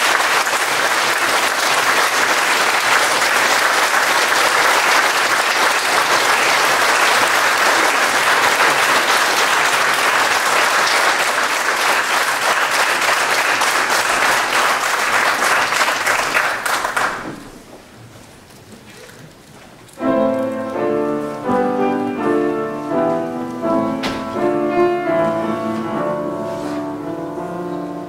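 Audience applauding steadily for about seventeen seconds, then dying away. A few seconds later a piano starts playing, introducing a choral piece.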